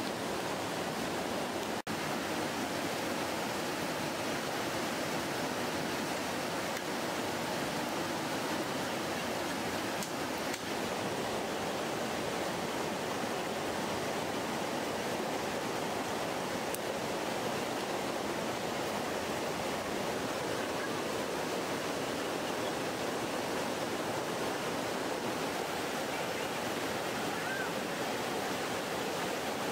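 Steady rushing of a flowing river, an even noise without pauses.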